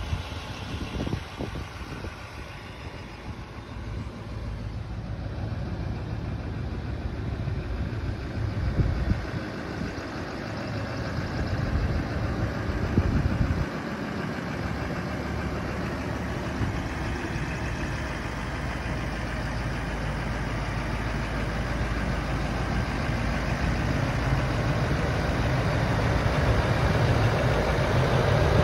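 2011 Chevrolet Silverado 3500 HD's 6.6L Duramax V8 turbodiesel idling steadily, growing louder near the end.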